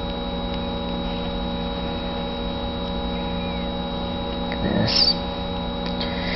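A steady electrical hum made of several constant tones that never changes, with a brief faint rustle about five seconds in.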